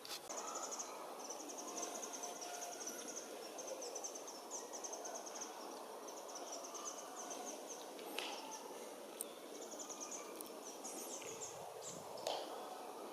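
High, thin, rapid bird trills, each a fast string of short notes, repeated again and again with brief gaps, over steady outdoor hiss; a few sharp clicks and a short low rumble near the end.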